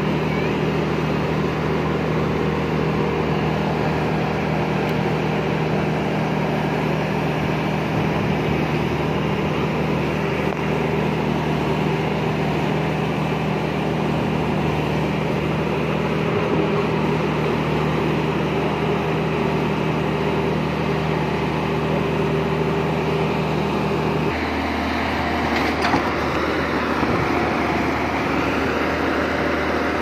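Diesel engine of a Tata Hitachi EX200LC crawler excavator running steadily. Its note changes abruptly near the end.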